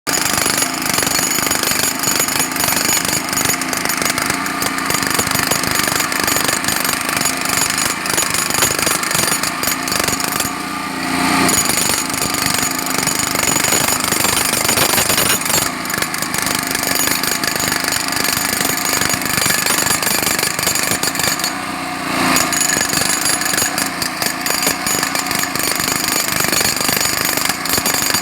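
Jackhammer hammering continuously with rapid, steady blows. It pauses briefly twice, about 11 and 22 seconds in, and a steady machine hum comes through in each pause.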